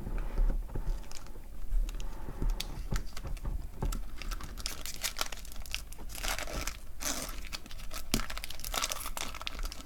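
A trading-card pack wrapper being torn open and crinkled by hand, with many small sharp crackles and a few louder rustling stretches later on.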